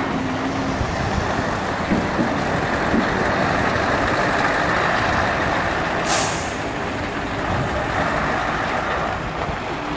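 Heavy vehicle running steadily, with a short hiss of released air about six seconds in.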